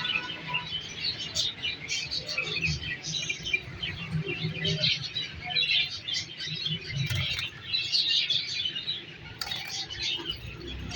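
Green parrots chirping and chattering, a dense, continuous run of short high calls, with a low rumble underneath at times.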